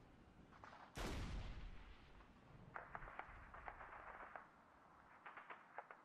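Faint gunfire sound effect: one heavy shot with a fading tail about a second in, then several quick bursts of rapid fire.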